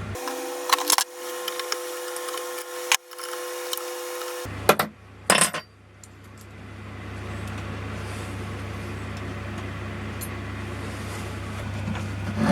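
Mini milling machine running with a steady hum, with a few sharp metallic clinks from small steel parts and tools in the first half.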